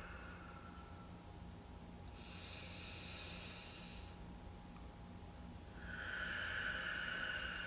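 Slow, deep breathing through the nose during a belly-breathing exercise: a higher-pitched hissing breath about two seconds in, then a longer, louder, lower breath from about six seconds in.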